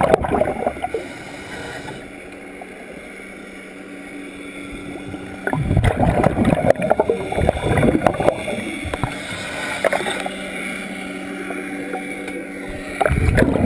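Scuba diver breathing through a regulator underwater: loud rushing bursts of exhaled bubbles, one at the start, a longer one from about five and a half seconds in, and another near the end, with quieter stretches of inhaling between. A steady low hum runs under the quiet stretches.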